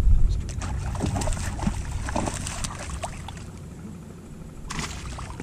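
Water splashing and trickling in short, irregular strokes, with a brief louder splash near the end, over a low wind rumble on the microphone.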